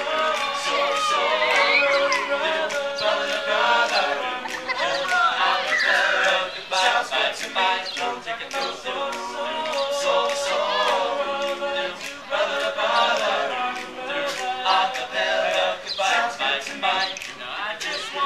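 Men's a cappella group singing in harmony, several voices together without instruments.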